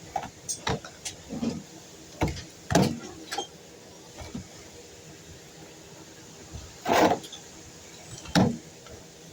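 A string of short knocks and clatters, about ten separate hits spread out with pauses, the two loudest longer ones near the end; handling noise of material and tools, with no saw running.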